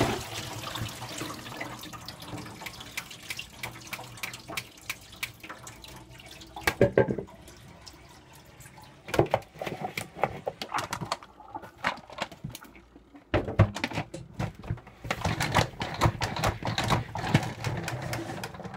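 Escarole leaves being rinsed in a plastic salad spinner basket in a sink, water splashing and leaves and plastic rustling and clattering. Near the end the lidded salad spinner is spun, giving a dense run of clicks and rattles.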